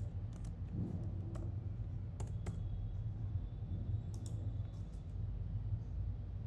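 Keystrokes on a computer keyboard: a few separate clicks spread over the first four seconds or so, over a steady low hum.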